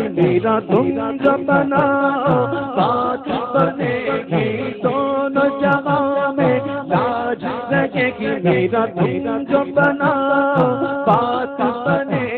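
A man singing a manqabat, an Urdu devotional song, with long ornamented lines into a microphone. Beneath the voice run a steady held drone and a low, regular beat.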